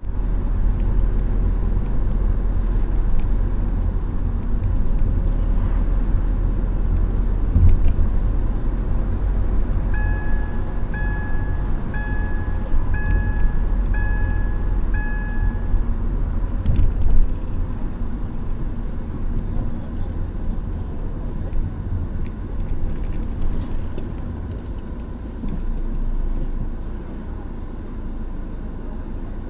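Car driving, heard from inside the cabin: a steady low rumble of engine and road noise. Midway, an in-car warning chime beeps six times, about once a second.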